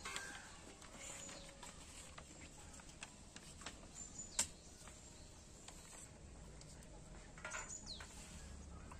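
Faint light taps and clicks of steel and foil plates being handled and rice being served, with one sharper click about four seconds in. A brief bird chirp sounds near the end.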